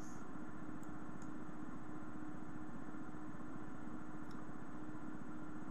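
Room tone: a steady hiss and low hum with a faint steady tone, and a few faint ticks.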